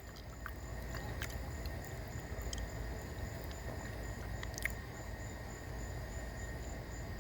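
Evening insects calling steadily: a high trill pulsing about four times a second over a lower continuous drone. A low background rumble and a few faint clicks lie beneath.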